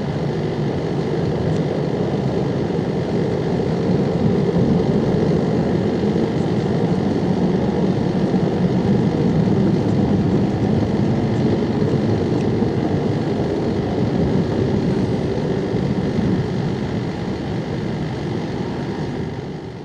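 Ilyushin Il-80 (Il-86VKP) airborne command post's four Kuznetsov NK-86 turbofans at climb power after takeoff: steady, deep jet noise that begins to fade near the end as the aircraft recedes.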